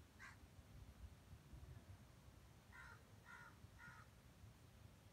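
A bird calling outdoors: one short call just after the start, then three short calls about half a second apart a little before the end, over a faint low background.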